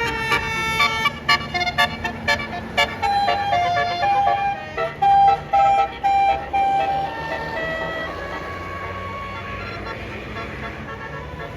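Bus Basuri telolet horn playing a tune: a quick run of short stepping notes, then longer held notes, fading away after about seven seconds over a low engine rumble.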